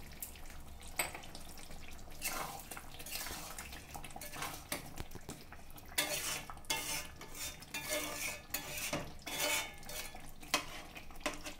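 Metal spatula scraping and clinking against an aluminium kadai while stirring chicken curry, in irregular strokes that come thicker in the second half.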